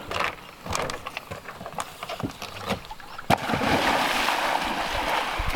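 Small scattered knocks and splashes, then about three seconds in a sudden hit and a big splash as a person plunges into lake water, followed by loud churning, splashing water.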